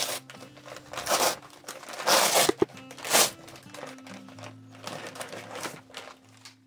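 Amazon kraft-paper padded mailer being torn open and crinkled by hand in a series of rips, loudest about two to three seconds in, with a pair of sharp clicks in the middle. Quiet background music plays underneath.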